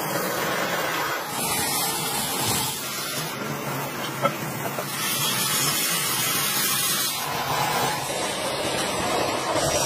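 Aerosol spray can hissing in bursts as a coating is sprayed into a sand casting mould, over a steady background hiss; a single sharp click about four seconds in.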